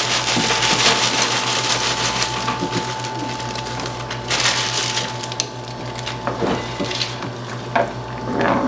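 Frozen mixed vegetables tumbling into a pot of chicken mixture, a dense rattling that fades after about two and a half seconds, then stirring, with a few knocks of the spoon against the pot.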